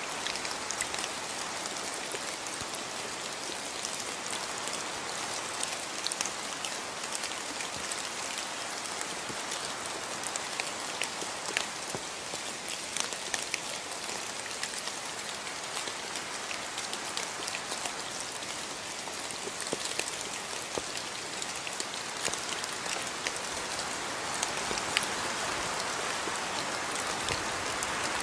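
Steady rain falling, a dense even hiss with many single drops ticking close by, swelling slightly near the end.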